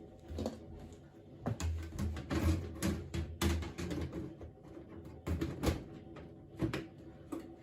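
Irregular knocks and clicks of computer hardware being handled, over a steady hum.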